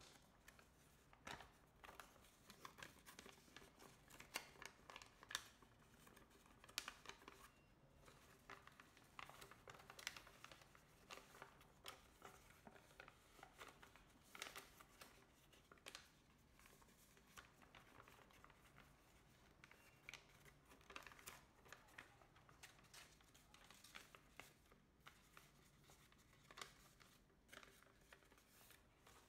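Large, densely pre-creased sheet of origami paper rustling and crinkling under the hands as it is folded and pressed flat, in faint, irregular crackles.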